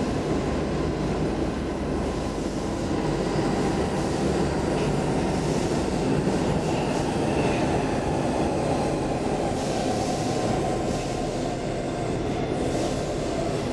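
Stockholm Metro C14 subway car running at speed, heard from inside the passenger car: a steady rumble of wheels on rail and running gear. A faint high squeal comes and goes about six seconds in.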